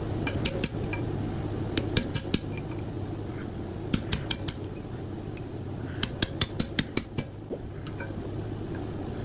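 A steel bar clinking and tapping against the metal fan and end housing of a 50 hp three-phase electric motor as it is pried, in short clusters of sharp clinks, over a steady low hum.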